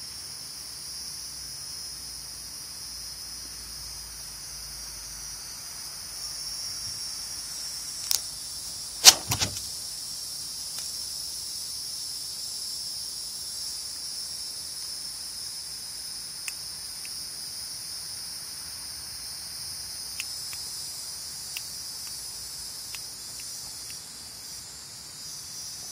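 A steady high-pitched hiss runs throughout. A sharp knock comes about nine seconds in, just after a lighter click, and a few faint ticks follow later.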